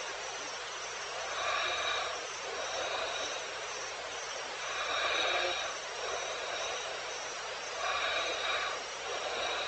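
Evening wild ambience: a steady high-pitched chorus of calling insects that swells in waves about every three seconds. No lion roar is heard.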